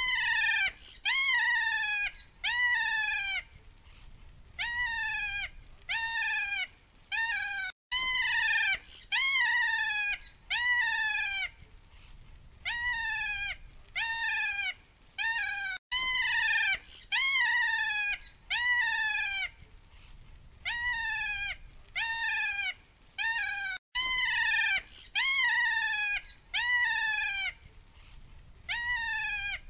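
Kea parrot giving its call over and over, a series of loud, shrill, mewing cries that each slide downward in pitch, roughly one every second or so, with a brief break about every eight seconds.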